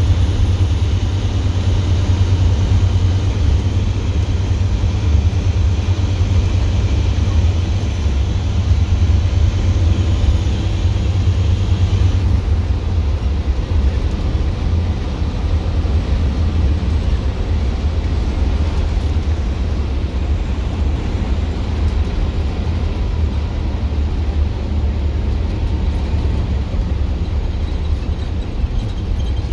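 Straight-piped International DT466E inline-six diesel of a 2007 IC FE bus, heard from the driver's seat while cruising: a steady, deep exhaust drone.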